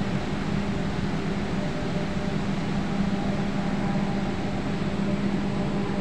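Steady rush of white water churning across a low weir, with a constant low hum underneath.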